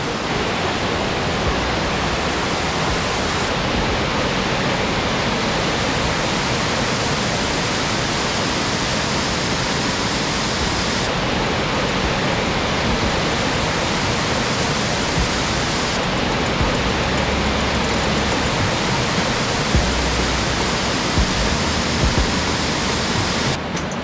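Guryong Falls, a whitewater cascade pouring over rock slabs, heard close by as a steady rush of falling water.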